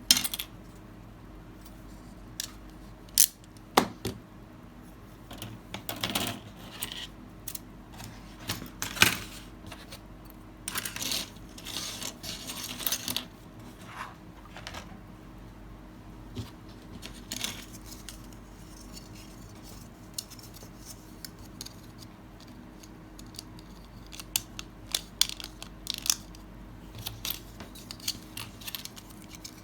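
Small plastic model-kit parts being handled on a work surface: scattered sharp clicks and taps with bouts of rustling, busiest in the first half and again near the end.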